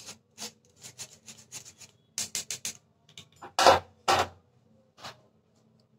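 Cocoa powder and flour being rubbed by hand through a fine wire-mesh sieve: a quick series of short scraping strokes, about three or four a second, getting louder. The two loudest strokes come a little past halfway, and one more follows near the end.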